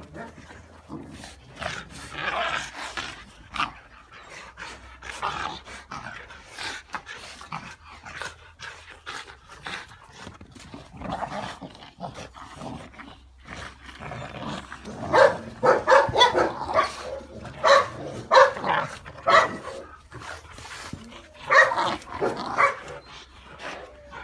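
Rottweiler puppies about two and a half months old play-fighting, barking and yipping in short bursts that come thicker and louder after about fifteen seconds.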